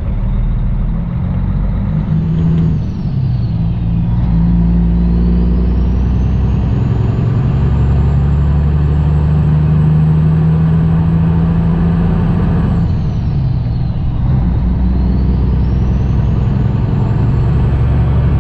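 Cummins ISX diesel engine of a 2008 Kenworth W900L semi-truck running steadily as the loaded truck pulls away down the highway. The engine note dips and breaks briefly twice, about three seconds and about thirteen seconds in.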